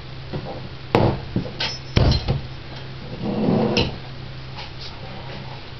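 Sharp knocks and clatters on a kitchen worktop while yeast dough is divided and handled, two loud knocks about a second apart and a few lighter ticks, followed by a short rustling stretch, over a steady low hum.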